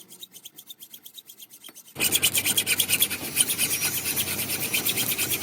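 Metal being rasped in quick, even strokes, faint at first and suddenly much louder about two seconds in.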